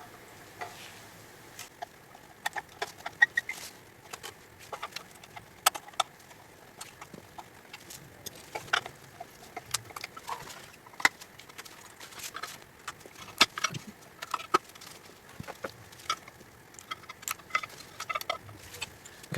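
Irregular small clicks, taps and scrapes of hand tools and parts working the middle plate of an automotive ECU's housing apart.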